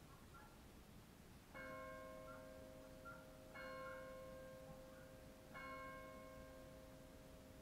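Faint bell tolling: three strokes about two seconds apart, each ringing on into the next.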